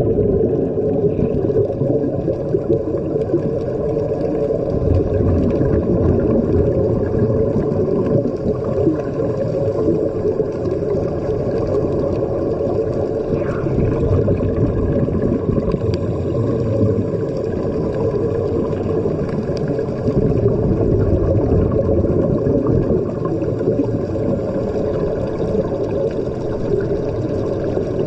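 Muffled underwater sound as picked up by a submerged camera: a steady low rush of water and air bubbles from the divers' air-fed helmets, with a faint steady hum underneath.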